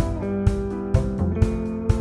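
2024 Gibson SG Supreme electric guitar with humbucker pickups, played through an amp. It holds ringing notes and chords that change every second or so, over a steady beat of about two strokes a second.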